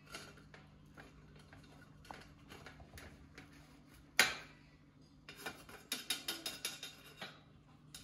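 Light metallic clicks and taps of a fennec fox and a cockatoo moving against a metal tray and brass coffee pots: one sharp clink about four seconds in, then a quick run of clicks, several a second, for just over a second.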